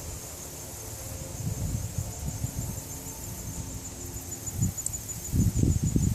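A steady, high-pitched insect trill, like crickets, runs throughout. Irregular low muffled thumps, likely footfalls or handling of the camera, come through it, loudest about five seconds in.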